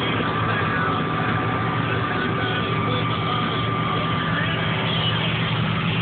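John Deere combine running, heard from inside its cab: a steady engine drone with a thin high whine over it that fades out about four and a half seconds in.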